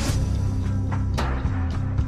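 Background music: a rock track with guitar, bass and drums kicking in at a steady beat after a rising swell.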